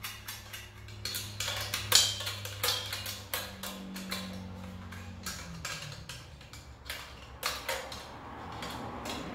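Metal clicking and clinking of an 11 mm wrench working bolts on a steel motor bracket, a few irregular clicks a second, over a low steady hum.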